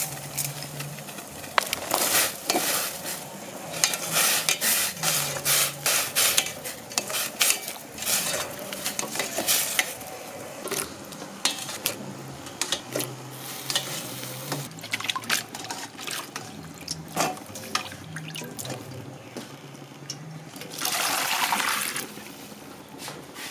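Water splashing and sloshing as red chili peppers are washed by hand in a stainless steel bowl of water, with light clinks against the bowl. Near the end, water pours for about a second.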